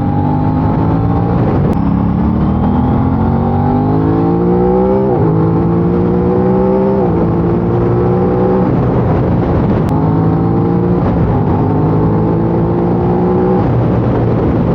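Aprilia RS660's 659 cc parallel-twin engine through its stock exhaust under way: the revs climb and drop back sharply at gear changes a few times, then hold steadier.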